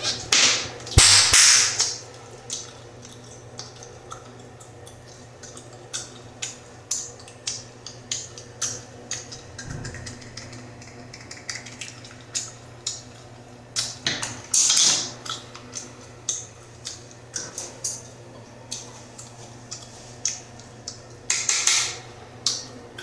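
Bubblegum being chewed with the mouth open, snapping and popping in a run of quick, sharp clicks, with three louder, longer stretches of wet smacking: about a second in, around the middle, and near the end.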